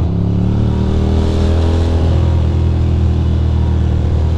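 Ducati Monster's L-twin engine running under way. Its pitch climbs gently over the first second or so, then holds steady at cruise, with wind and road noise around it.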